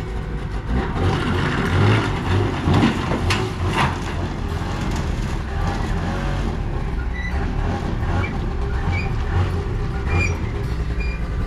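A vehicle engine running steadily, with a few clattering knocks in the first few seconds.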